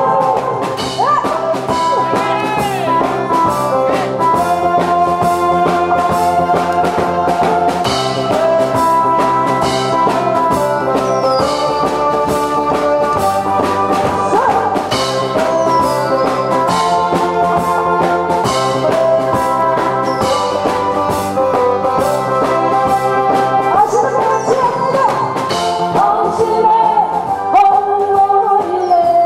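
Backing track music playing an instrumental break, with brass and a steady drum beat. A woman's singing voice comes back in near the end.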